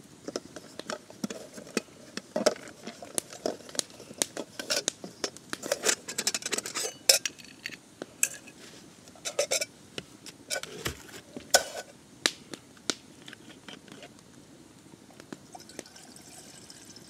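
Metal camp cookware and utensils being handled: irregular clinks, knocks and scrapes of pots, pans and cutlery.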